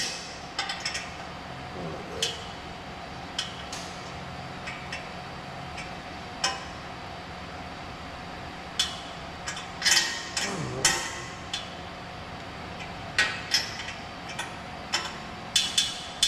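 Irregular metallic clicks, clinks and knocks of hand tools and exhaust parts being fitted and tightened, with a few quick clusters about ten seconds in.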